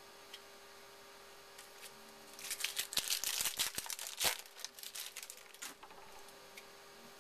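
A trading-card pack wrapper being torn open and crinkled in the hands: a burst of crackling and rustling lasting about three seconds, with a sharp snap near its middle.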